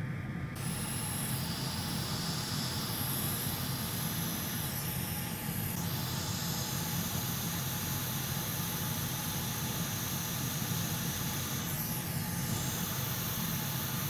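Hot air rework station blowing with a steady hiss. Its high-pitched part comes in about half a second in, as hot air is aimed at a replacement Thunderbolt controller chip to solder it to the laptop board.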